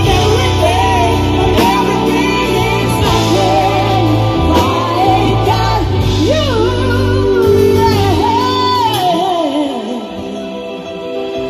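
Live pop band playing: singing over electric guitar, keyboards and a drum kit. The bass and drums drop away for the last few seconds, leaving the voice and lighter accompaniment.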